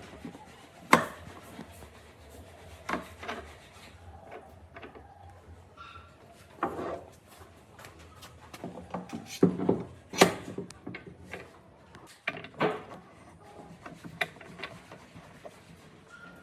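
Irregular knocks and short scrapes of wood being handled and worked by hand in a workshop. The sharpest knocks come about a second in and again about two-thirds of the way through.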